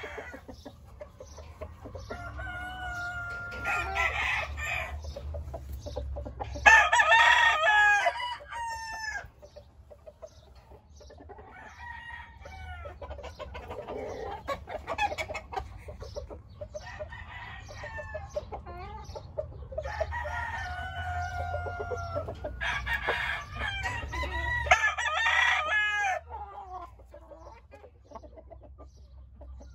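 Roosters crowing again and again, several calls overlapping at different pitches, the loudest about seven seconds in, with clucking between the crows. A steady low rumble runs underneath.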